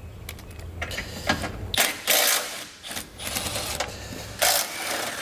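Milwaukee Fuel cordless ratchet running in short bursts as it backs out 13 mm bolts from a car's front bumper beam. The longest runs come about two seconds in and again near the end.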